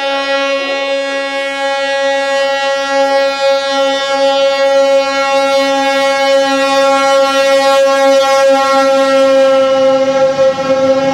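Train horn held on one long, steady single tone, with a rushing noise growing under it near the end.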